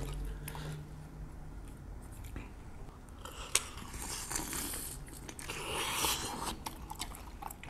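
Two people biting into and chewing Korean fried cheese balls soaked in sauce, close to the microphone. There is a sharp bite about three and a half seconds in and a louder stretch of chewing around six seconds.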